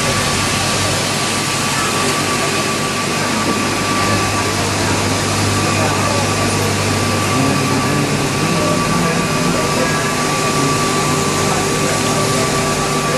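Steady machine drone of a wet-market fish stall, with aerated live-fish tanks bubbling and a constant thin whine over a low hum. Faint voices sit underneath.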